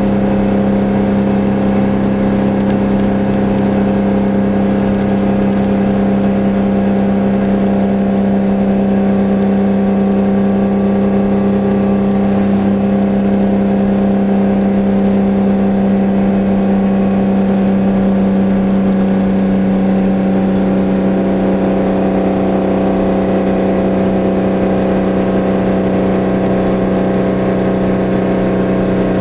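Detroit Diesel 12V71 two-stroke V12 in a 1973 Kenworth W-923, heard from inside the cab, running at a steady speed with an even drone. There are no shifts or changes in engine speed.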